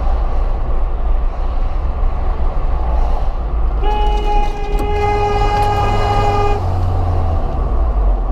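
Steady road and engine rumble inside a moving car, and about four seconds in a car horn sounds one steady note held for nearly three seconds: a warning honk at a pickup truck pulling into the lane ahead.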